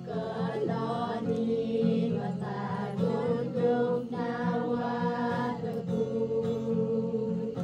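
Background music: a singing voice over steady accompaniment.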